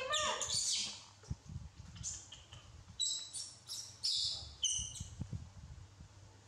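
A baby macaque squeaking and chirping: short high-pitched calls in about four quick groups over the first five seconds, the first with a falling squeal.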